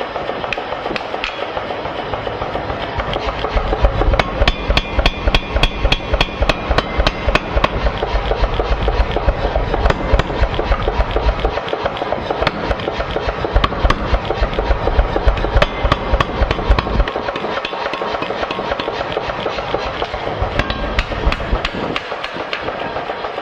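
Forging a hot steel parang blade: hand hammer blows ringing on the anvil, then a mechanical power hammer pounding the blade in a rapid, steady run of heavy blows for about thirteen seconds, then hand hammering again near the end.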